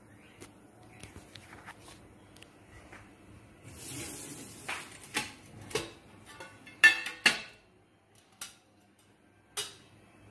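Kitchen utensils clinking and knocking, with a brief hiss about four seconds in, then a run of sharp clinks; the loudest, near seven seconds, rings briefly.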